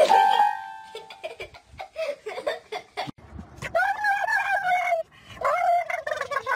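A dog pressing keys on a toy electronic keyboard, sounding a few held notes. About three seconds in, a dog inside a car gives two long, wavering calls, a weird, howl-like noise.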